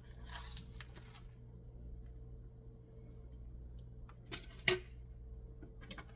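Kitchen handling sounds: a soft rustle of shredded cheese being spread on a tortilla by hand, then two sharp knocks about half a second apart, the louder one a wooden spatula set down on a granite countertop. A steady low hum runs underneath.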